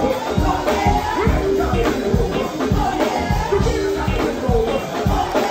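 Band playing upbeat dance music with a steady drum beat about two beats a second, and singing over it.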